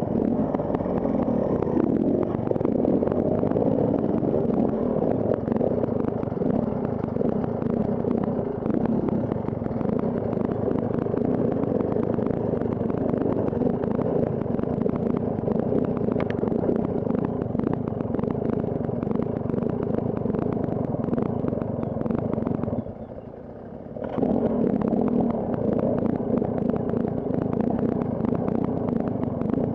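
KTM Freeride enduro motorcycle engine running steadily as the bike is ridden off-road, with clatter from the bike. The engine sound drops away briefly near the end, then picks up again.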